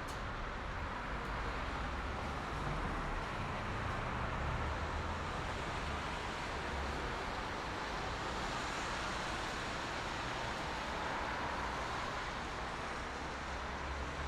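Steady wash of highway traffic: tyre hiss and engine rumble from many vehicles blended together, with a deeper rumble swelling a few seconds in as heavier traffic passes.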